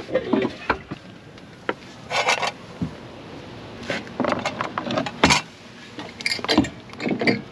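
Gear being handled and shifted about: a string of knocks, rubs and clatters, with a short scraping rush about two seconds in and the loudest knock a little past the middle.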